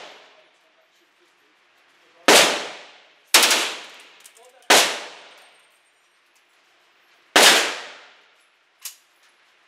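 Four single gunshots from a handheld firearm, fired one at a time at uneven intervals. Each ends in a long echoing tail off the walls of an indoor shooting range. A much softer click follows near the end.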